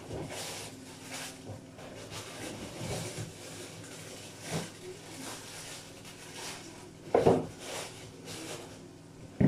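Kitchen handling noises: light rustling and soft knocks as a fridge is opened and searched, with one louder knock about seven seconds in.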